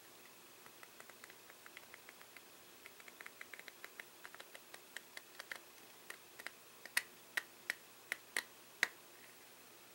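Playing cards being taken off the top of a deck a few at a time make a faint, irregular run of small card clicks. Between about seven and nine seconds in come half a dozen sharper snaps.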